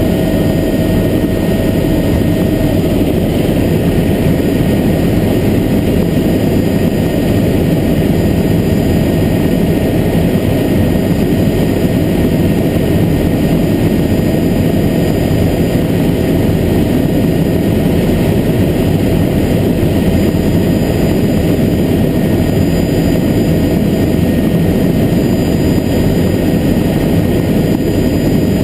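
Helicopter in steady cruising flight heard from inside the cockpit: engine and rotor running at an even, loud level, with a faint steady whine over the low rumble.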